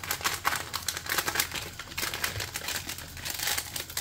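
Packet of rasmalai powder mix crinkling as it is squeezed and shaken out, with a quick irregular run of crackly taps.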